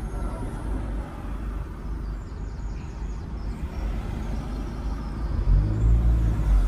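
Road vehicle on the move: a steady low rumble of engine and road noise. About five and a half seconds in, a deeper engine tone swells louder, as when the engine pulls harder.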